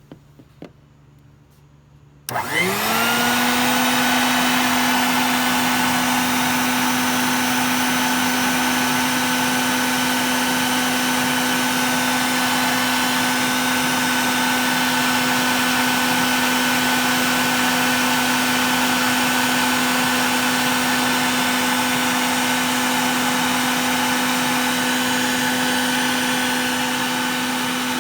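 Home Depot Bucket Head wet/dry shop vac switched on after a few faint clicks: its motor spins up with a short rising whine, then runs loud and steady, a fairly low-pitched drone under a rush of air, very loud close up. It eases slightly near the end.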